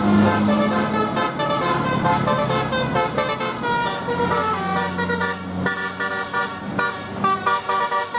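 Basuri telolet bus horn playing a quick melody of short, changing notes over the low hum of the bus engine, which drops away about halfway through.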